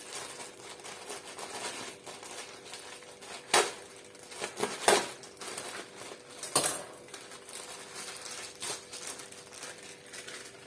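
Crinkling and rustling of takeaway food packaging being handled, with three louder sharp knocks in the middle as containers or dishes are set down.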